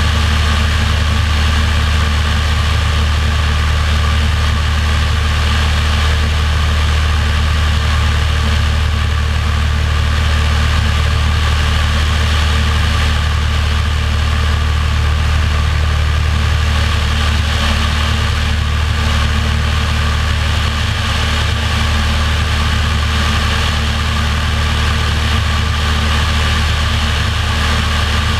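Light single-engine propeller airplane in cruise flight: a steady, unchanging engine and propeller drone with rushing air, heard from a camera mounted outside beneath the fuselage.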